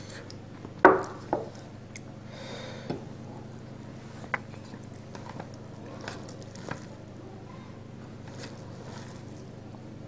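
A hand mixing rice with chicken curry on a steel plate: soft squishing with a few light clicks of fingers against the plate. A sharp metal knock about a second in, with a smaller one just after, as the small steel gravy bowl is set down on the table.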